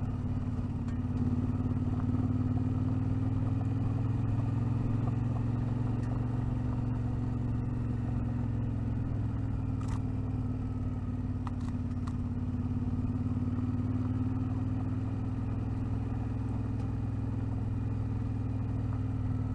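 Vehicle engine droning steadily while driving on a loose gravel track, with a few sharp clicks from stones about halfway through.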